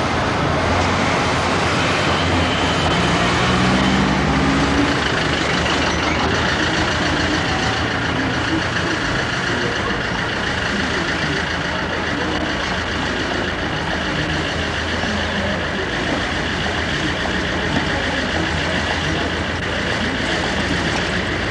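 Street traffic: motor vehicle engines running close by, one rising in pitch a few seconds in as it pulls away, over steady road noise.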